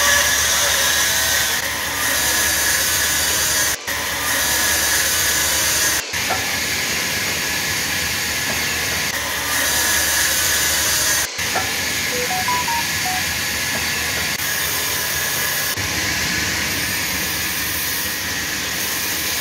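Sawmill band saw cutting through a large log: a steady, loud hissing whine. The sound cuts out briefly three times.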